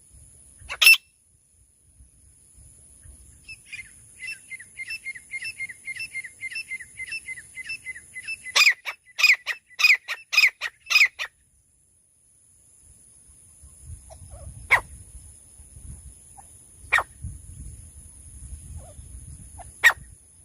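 Francolin (teetar) calling: a fast run of short, shrill repeated notes that builds into a burst of loud, harsh calls about halfway through, followed by single sharp calls a few seconds apart.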